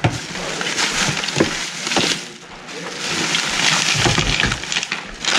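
Plastic bag rustling and crinkling as gloved hands pull a bag out of a plastic cooler and dig through it, with a few light knocks of items against the cooler.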